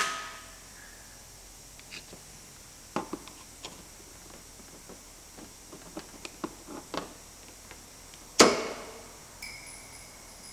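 Small clicks and taps of a flathead screwdriver prying at a bonnet strut's retaining clip, then about eight seconds in one sharp, loud snap with a brief ring as the clip springs off and goes flying. A faint steady high tone follows near the end.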